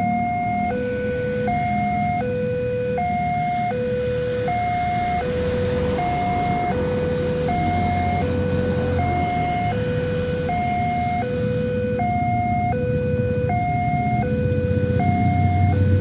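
Railway level-crossing warning siren: an electronic two-tone signal alternating steadily between a higher and a lower note, each held about three-quarters of a second. A low rumble runs underneath and grows louder near the end.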